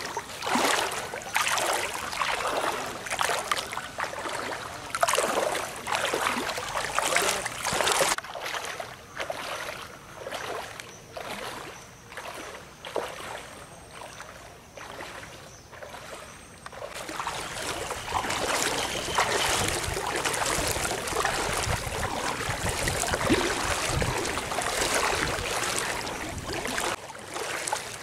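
Floodwater splashing and lapping in irregular bursts, quieter through the middle, then a steadier, fuller rush of water in the last third.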